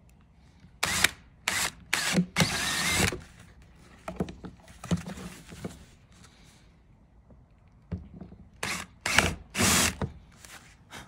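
Cordless drill boring a hole through a plastic motorcycle fairing piece, run in short bursts: a cluster of quick whirs in the first three seconds, the longest about a second, then three more brief whirs near the end.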